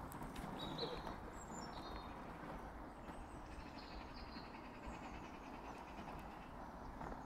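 Small woodland birds chirping: a few short high calls, including a quick falling run of notes about two seconds in and more chirps around four to five seconds, over a steady low rumble.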